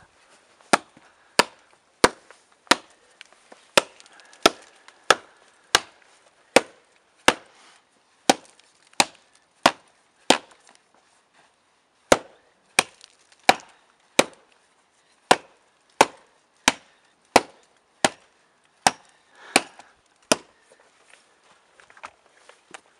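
A hatchet chopping into a birch log on the ground: steady, sharp strikes about every 0.7 seconds, roughly two dozen in all, with a short pause about halfway through.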